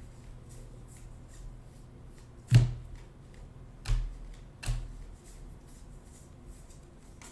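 Baseball trading cards being handled and sorted: faint flicking ticks, with a sharp tap about two and a half seconds in and two softer taps over the next two seconds.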